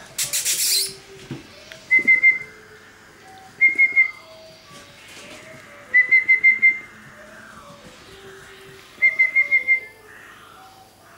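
Person whistling in short, rapid pips at one high pitch: four quick bursts of three to six notes each, spaced a couple of seconds apart. A brief hiss comes just after the start.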